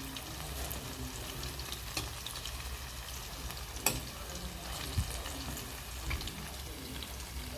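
Breaded chicken tails shallow-frying in oil, a steady sizzle with small crackles, and two sharper clicks about four and five seconds in.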